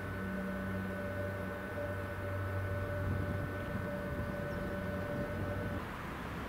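Steady machine hum with several held pitches, the lowest one fading in and out, cutting off about six seconds in, followed by a rushing noise.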